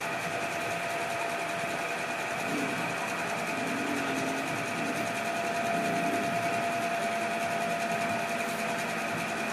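Steady mechanical whirring hum with a constant high whine, starting abruptly and running unbroken.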